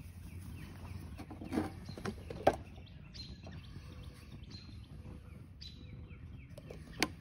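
Small birds chirping over and over in short, falling calls, with a few sharp clicks and taps, the loudest about two and a half seconds in and another near the end.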